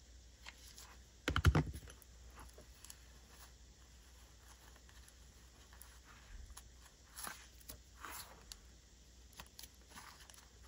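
Small handling noises from hands working a paper tag and a silk ribbon bow: a quick clatter of several clicks and knocks about a second and a half in, then faint scattered taps and rustles.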